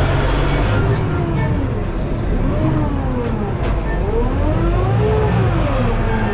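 Arbos tractor's diesel engine heard from inside the cab, running steadily under a constant low drone, its pitch dipping and rising again a couple of times as the revs change.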